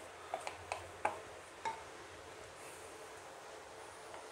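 A few light knocks and scrapes of a wooden spatula against a metal pan as relish is scraped out into a bowl, the last about a second and a half in, then quiet room tone.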